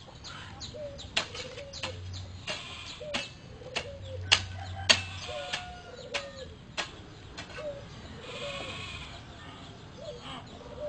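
An animal's short, falling calls repeated about every half second, with sharp clicks among them that are the loudest sounds.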